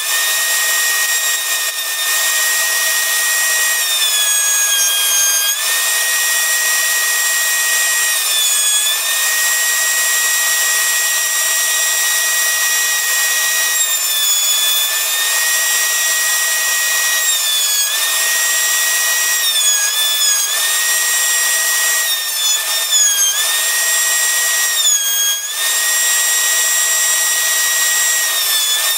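A router table with a bearing-guided trim bit runs at a steady high whine. Its pitch dips briefly again and again as an OD green Micarta handle scale is pressed against the bit and trimmed.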